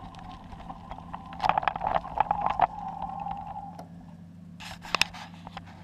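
Bicycle being ridden, rattling and clicking. A dense run of sharp clicks and knocks comes about a second and a half in, and a few more near the end, over a steady low hum.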